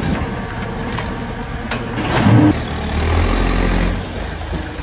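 Diesel engine of a JCB backhoe loader running steadily while it works. A sharp clank comes a little under two seconds in, followed by a brief louder scraping clatter.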